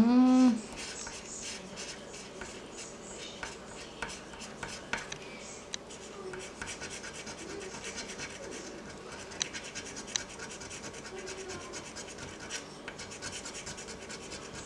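Coin scratching the latex coating off a lottery scratch-off ticket: quick, repeated rasping strokes. A short hummed note from the person right at the start is the loudest sound.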